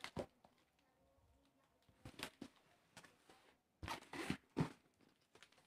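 Cardboard shipping carton being handled and pulled open: a few brief scraping, rustling noises of cardboard and packing tape, loudest in a cluster about four seconds in.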